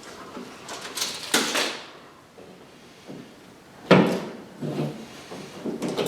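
Handling noises as a TV wall mount and its hardware are worked on: a few irregular knocks and clatters, the sharpest and loudest about four seconds in.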